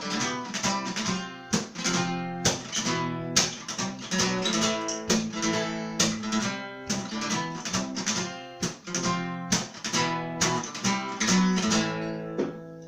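Acoustic guitar strummed in a steady rhythm with no singing: the instrumental close of the song. The strumming stops near the end and the last chord rings out.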